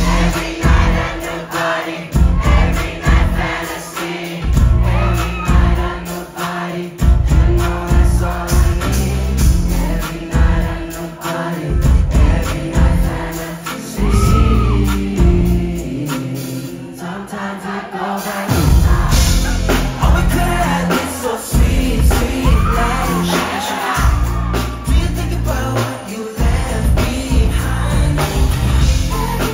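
Live pop song: a male lead vocal sung over a band's drums, keyboards and heavy bass, heard through the venue's PA from the crowd. About halfway through the bass and drums drop back for a few seconds, then come back in full.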